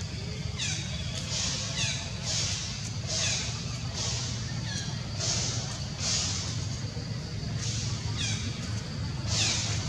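A high animal call repeated about once or twice a second, each call sliding down in pitch, over a steady low rumble.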